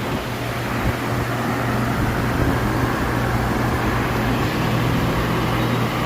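CNC milling machine running steadily: a constant low hum under an even rushing noise.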